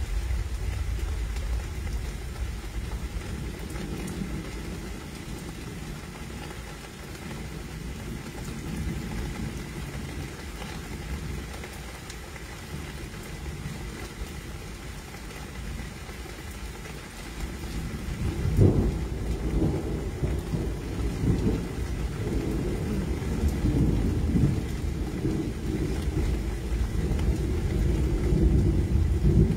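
Thunderstorm: a steady low rumble of thunder and rain. About 18 seconds in a sharp crack of thunder sets off louder, uneven rumbling that carries on.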